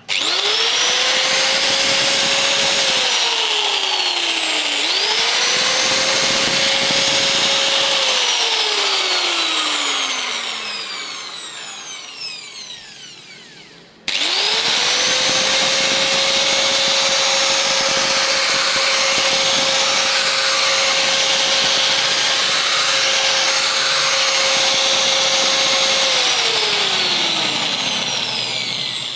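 Electric angle grinder test-run after being cleaned: the motor spins up with a rising whine, runs at a steady speed, and winds down, three times. It is switched off about three seconds in, switched back on before stopping, then coasts down for several seconds. It is started again at about the halfway point, runs steadily for about twelve seconds and winds down near the end.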